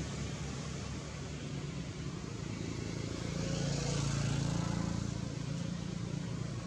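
Steady low rumble of a motor vehicle's engine, swelling a little about four seconds in and then easing off.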